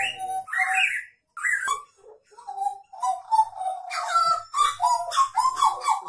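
Caged Papuan butcherbird (jagal Papua) singing a varied run of loud whistled notes and short phrases, with a brief pause about two seconds in.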